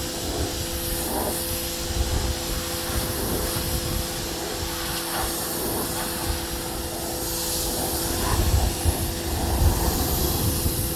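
Wall-mounted Giraffe Tools Grandfalls electric pressure washer running: a steady hum with two held tones from the motor and pump under the hiss of the water spray.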